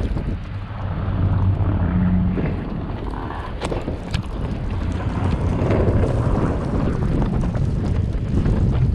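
Snow-plowing machine's engine running steadily, with wind buffeting the microphone and a few sharp knocks.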